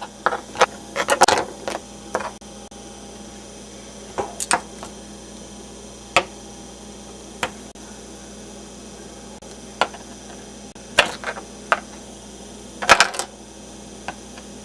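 Plastic Lego minifigures being clacked together and moved by hand in a mock sword fight: scattered sharp clicks and knocks, some in quick pairs, over a steady low hum.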